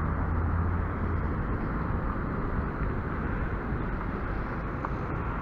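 Steady rumble of road traffic, with a low engine hum that is strongest for the first second or so and then eases.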